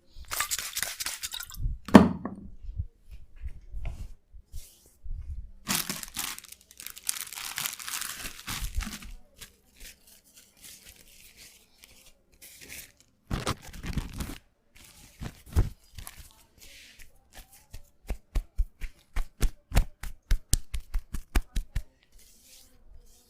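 Barber at work on a customer: bursts of scraping and crackling, a single loud knock about two seconds in, then a fast run of sharp taps, about five a second, near the end.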